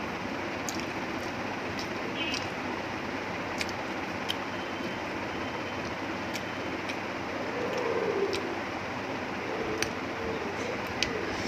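Steady background hiss with scattered faint clicks.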